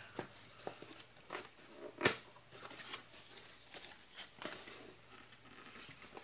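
Cardboard box and paper wrapping being handled as parts are unpacked: soft rustling and scattered light clicks, with one sharper click about two seconds in.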